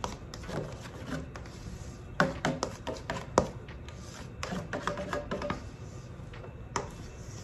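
A spatula scrapes and knocks against a stainless steel mixing bowl while chiffon cake batter is poured out into a metal baking pan, making a string of clicks and knocks, some with a short ring. The sharpest knocks come about two and three and a half seconds in. Music plays quietly underneath.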